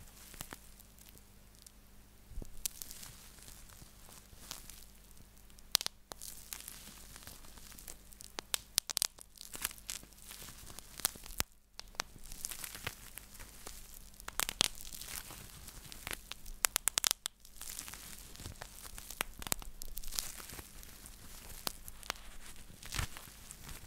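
Rolled-up plastic bubble wrap twisted and squeezed by hand close to the microphone: continuous crinkling with sharp bubble pops scattered through it, some in quick runs.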